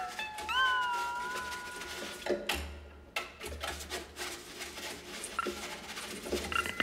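Electric guitar played flat on the lap with a slide: a gliding, meow-like tone bends up about half a second in and holds as it fades. It is followed by a scraping noise on the strings and scattered faint clicks and short notes.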